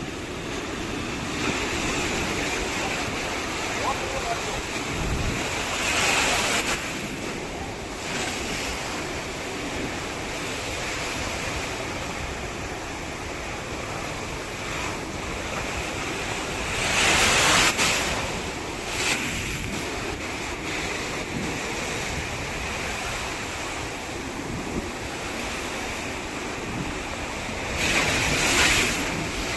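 Ocean surf washing steadily on a sandy beach, with louder breaking waves about six seconds in, around seventeen seconds and near the end.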